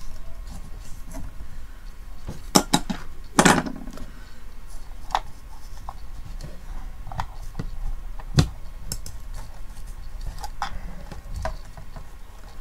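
Hands handling and working on a small plastic digital TV antenna housing: scattered clicks, taps and light scrapes of plastic, with the loudest knocks a little before and after three seconds in.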